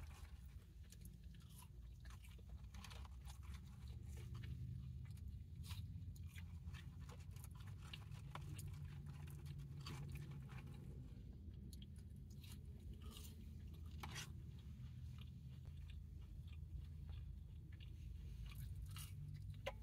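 Close-up chewing and crunching of fast food, with many small scattered clicks and crackles of biting and mouth sounds, over a steady low hum.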